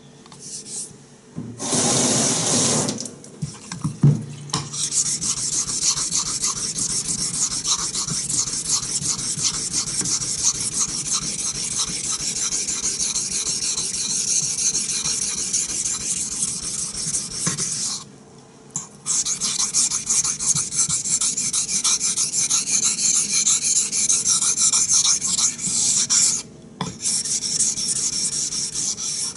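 A knife blade in A2 steel being honed on a wet Naniwa Chosera 400-grit waterstone: quick, scratchy strokes of steel on stone that grind the microchips off the edge. The strokes run with brief breaks about 18 and 26 seconds in. They are preceded by a louder rush of noise about two seconds in and a knock about four seconds in.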